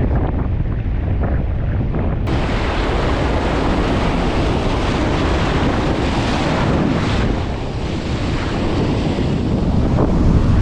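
Strong wind buffeting the microphone over the steady wash of breaking ocean surf. The sound changes abruptly about two seconds in, as at a cut between clips.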